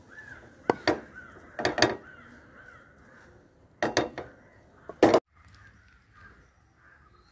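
Crows cawing: a run of short calls in groups of two or three, the last one cut off abruptly about five seconds in.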